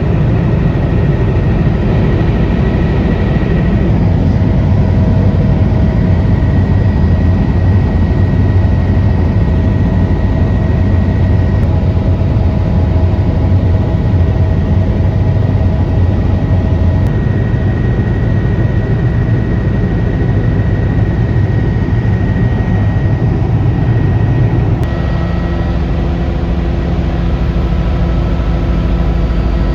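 Helicopter engine and rotor noise, a loud, steady drone with several steady tones over a heavy low hum. The tone shifts abruptly about 4, 17 and 25 seconds in.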